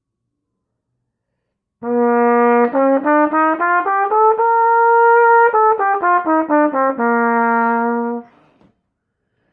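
Trumpet played through a 3D-printed PLA mouthpiece, a copy of a Vincent Bach 1-1/2C. After almost two seconds of silence it sounds a one-octave scale in separate tongued notes: a held low note, steps up to a held top note, then steps back down to the low note, held and released.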